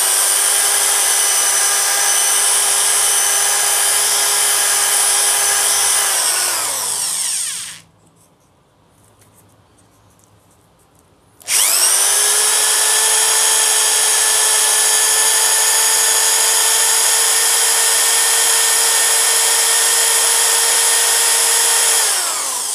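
Electric drill spinning a power-steering motor armature with a steady whine while its commutator is smoothed with emery paper. It winds down and stops about seven seconds in, then starts again a few seconds later, a little higher in pitch, and runs until it winds down near the end.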